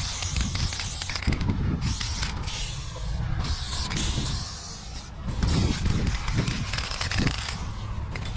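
Aerosol spray paint can hissing in several long bursts with short breaks as paint goes onto the wall, stopping shortly before the end. A low rumble runs underneath.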